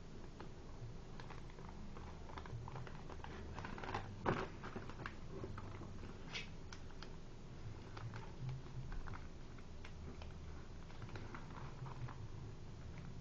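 Origami paper being folded and creased by hand: scattered small crinkles and taps, with one louder crackle about four seconds in.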